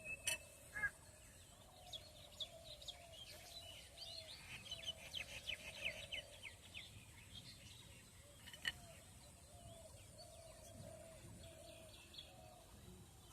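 Faint birdsong: a quick run of high chirps through the middle, over a lower call repeated at an even pace, with two sharp clicks.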